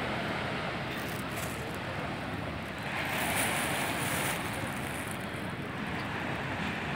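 Steady wind noise buffeting the phone's microphone, rising briefly about three seconds in.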